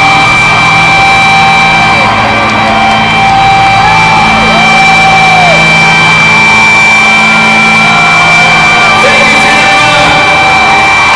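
Live rock band playing loud: sustained guitar feedback with steady whining tones and swooping pitch glides over held low notes.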